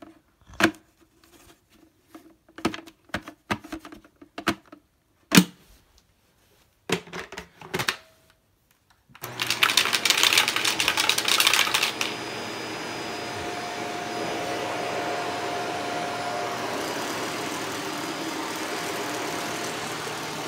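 A run of sharp clicks and knocks, then a Shark vacuum cleaner switching on about nine seconds in: a loud rush for a few seconds that settles into a steady running hum as it vacuums carpet.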